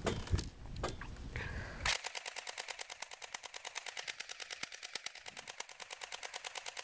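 M85 airsoft rifle firing a continuous full-auto stream of shots, about ten a second, starting about two seconds in after a low rumble. It keeps firing until the magazine runs empty.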